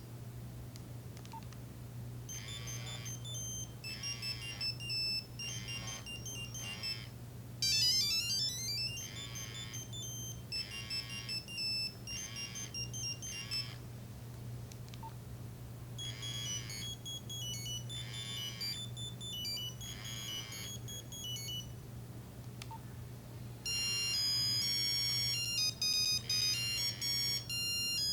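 Nokia 3395 mobile phone playing ringtone melodies: short beeping tunes in repeated phrases separated by pauses, with a quick rising run of notes about eight seconds in and a louder, busier tune starting near the end. A steady low hum sits underneath.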